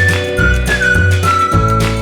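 Upbeat background music: a high whistle-like melody over a steady bass beat.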